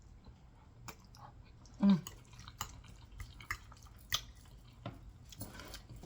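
Close-miked wet eating sounds of someone taking a bite of spaghetti: scattered mouth clicks and smacks, with one louder wet sound about two seconds in.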